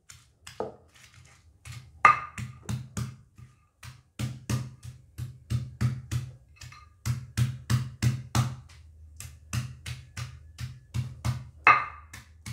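Stone pestle pounding chopped green tomatoes into green chili paste in a stone mortar (cobek): a run of knocks, about three a second, broken by a few short pauses.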